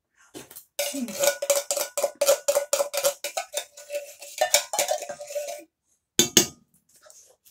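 Spoon scraping and knocking inside a metal tin of tomato soup to empty it into the pan: a rapid run of clinks, several a second, with the tin ringing at one steady pitch, and a few more knocks near the end.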